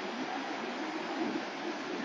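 Surf from an arriving typhoon swell breaking on the reef: a steady, even rush of noise.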